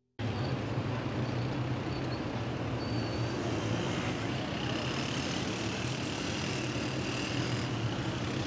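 Busy city road traffic: a steady hum of cars and buses running, which starts abruptly just after the beginning.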